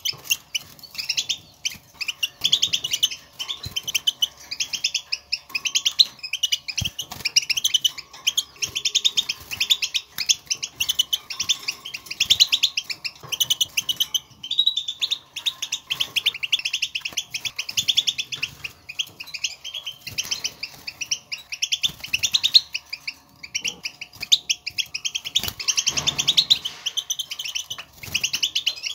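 European goldfinch twittering and calling in a rapid, almost unbroken chatter of sharp chirping notes. This is the contact call goldfinches use in the wild to call to one another, the sound used to set caged goldfinches singing.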